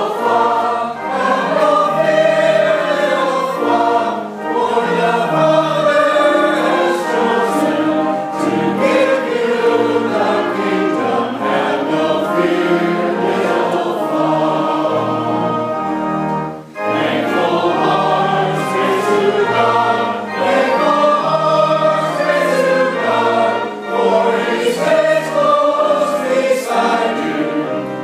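A roomful of people singing a hymn together, accompanied by a pipe organ. The singing is steady, with a brief break about seventeen seconds in.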